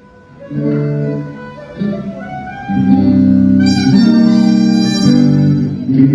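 Instrumental music with held, sustained notes that change step by step; it comes in about half a second in and gets louder about three seconds in.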